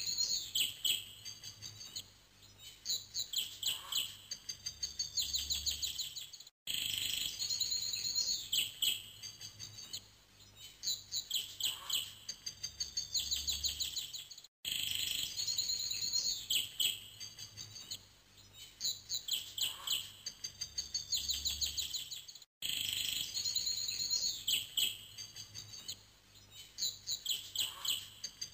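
Birds chirping and trilling in rapid high runs, one short stretch of recorded birdsong looped over and over, with a brief silent gap about every eight seconds.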